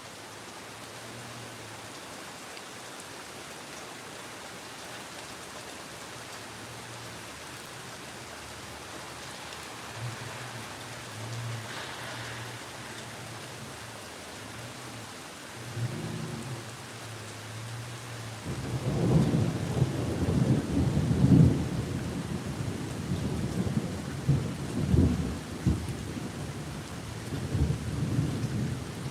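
Steady rain falling, with low thunder rumbling faintly at first, then a long, loud roll of thunder starting about two-thirds of the way through and rumbling on with repeated surges.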